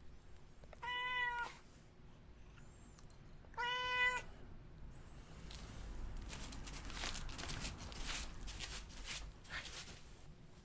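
A cat meowing twice: two short, level-pitched meows about three seconds apart. They are followed by several seconds of faint rustling and light knocks.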